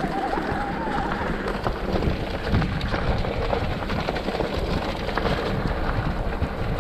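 Mountain bike running down a dirt trail: a steady rushing noise and low rumble from the tyres and air, with frequent small knocks and rattles from the bike. A wavering squeal fades out about a second in.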